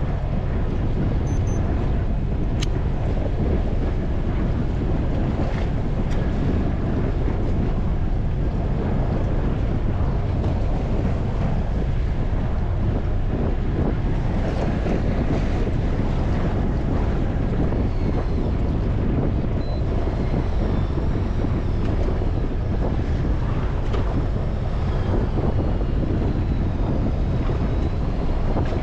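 Steady wind buffeting the microphone over the rush of the sea aboard a small fishing boat, with no break.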